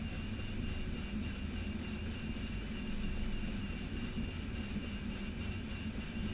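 Steady cockpit noise of an Airbus A320-214 taxiing, its CFM56-5B engines at idle: a continuous low rumble with a hiss of air and fans, and a faint steady high whine.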